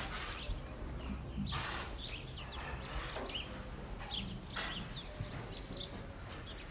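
Barn ambience: small birds chirping in short, scattered calls, over a low steady rumble with a couple of soft rustling swells.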